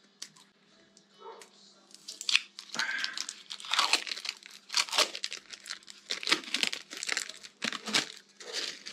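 Thin tape crinkling and tearing as it is handled and pulled, in irregular crackles that start about two seconds in.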